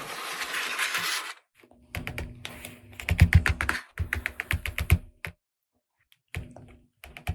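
A short rustling noise, then quick runs of sharp clicks and taps of small plastic toy pieces being handled, coming in clusters with short pauses, and a few single clicks near the end.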